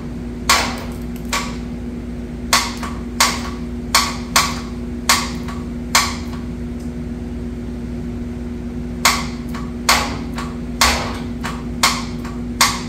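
Hammer blows, about a dozen sharp knocks at an uneven pace with a pause of about three seconds in the middle, over a steady low hum.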